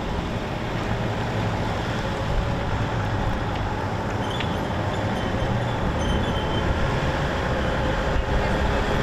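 Steady vehicle noise: a continuous low engine rumble under an even road hiss, with no break.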